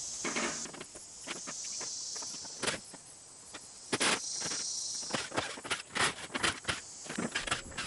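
Irregular knocks, clicks and clatter of wooden wall slats being worked loose and pulled off the metal framework of a box truck body, coming faster in the second half, over a steady high chirring of insects.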